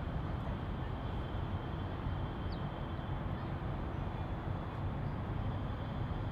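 Steady outdoor city ambience: a continuous low rumble of distant traffic, with a faint steady high-pitched tone over it.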